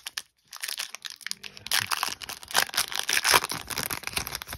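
A crimp-sealed hockey-card pack wrapper being torn open and crinkled by hand. It makes a dense run of crackling that starts about half a second in and is loudest in the middle.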